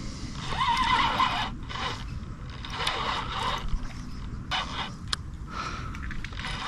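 Fishing reel's drag buzzing in short wavering spells as a hooked carp pulls line off against it during the fight, with a few sharp clicks in between.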